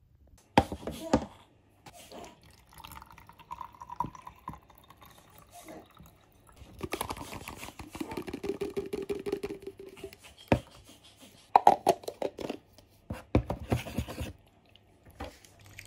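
Plastic baby bottles and breast-pump parts clicking and knocking against a tray as they are handled, with expressed breast milk poured from one bottle into another.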